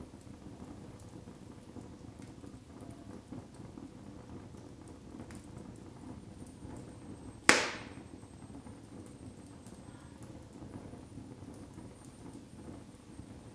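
Split firewood logs burning in a fireplace: a steady low rush of flames with faint scattered crackles, and one loud, sharp pop from the burning wood about halfway through.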